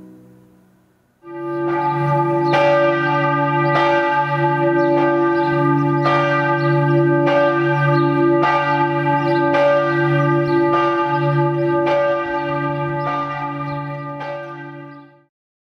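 The St. Michael church bell, cast in 1965, tolling with a stroke about every 1.2 seconds over its lingering hum. It starts about a second in, just after the organ's last chord has died away, and is cut off abruptly near the end.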